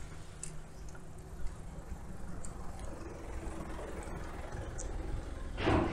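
Steady low rumble of road traffic, with a motor vehicle passing in the middle. A short voice sound comes just before the end.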